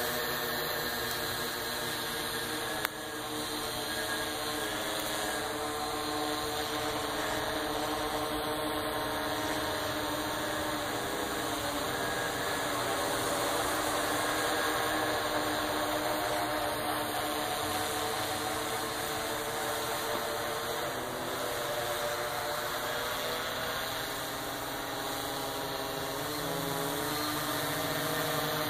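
Kopter Krazy K-850 Trooper quadcopter flying overhead: its electric motors and propellers whine and buzz in several tones that waver up and down as the throttle changes. A brief click about three seconds in.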